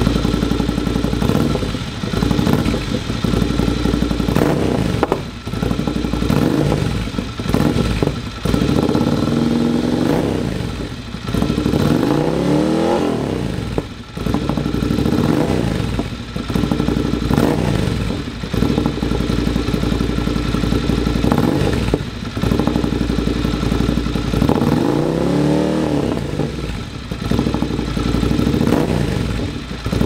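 Ducati Scrambler 803's air-cooled L-twin engine running through an Akrapovic titanium slip-on silencer, idling and being revved repeatedly in short blips, with two longer revs that rise and fall about ten seconds in and again around twenty-five seconds in.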